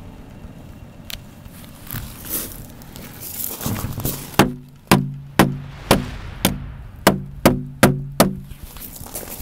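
Ice-coated HK USP .45 ACP pistol handled with a few knocks, then fired nine times in quick succession, about two shots a second, each shot followed by a short low ring. The hammer now drops despite the ice that had formed on the sear.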